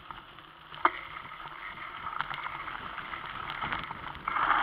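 Bicycle riding over a dirt track: tyre noise with rattles and clicks from the bike. There is one sharp knock about a second in, and the noise gets louder near the end.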